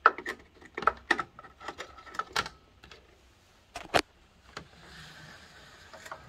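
Rapid clicking and scraping of a Revox A77 reproduce-amplifier circuit card being pushed into its edge-connector slot among the deck's plug-in boards, with one sharper click about four seconds in.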